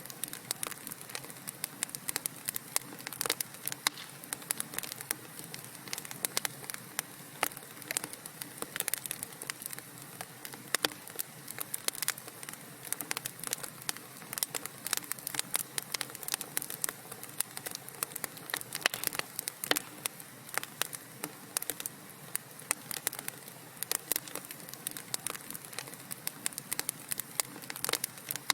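Burning wood crackling in a fireplace: irregular sharp pops and snaps, several a second, over a steady soft hiss.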